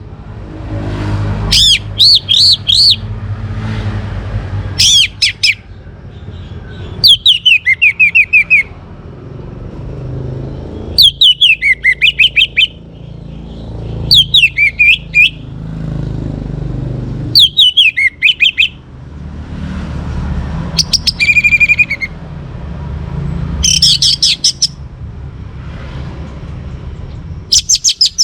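Young orange-headed thrush singing in short bursts of rapid, repeated, falling whistled notes, a phrase about every three seconds. A low rumble runs underneath.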